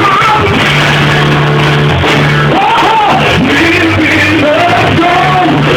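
Gospel song with instruments: a voice sings long, bending lines over held low bass notes.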